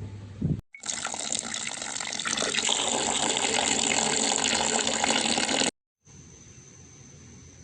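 Tap water running steadily into a sink for about five seconds, starting and stopping abruptly.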